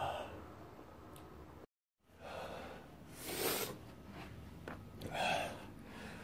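A man's loud, breathy exhales, two of them about two seconds apart, each a sigh or huff of breath. A brief total dropout at an edit comes just before them.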